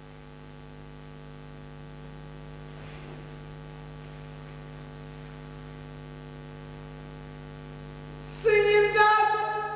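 Steady electrical mains hum on the recording. Near the end a loud, high-pitched voice calls out briefly.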